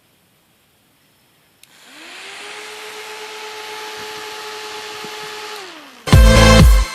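A small electric fan motor clicks on, rises to speed, runs steadily for about three seconds with a hiss of moving air, then winds down. Loud electronic music starts near the end.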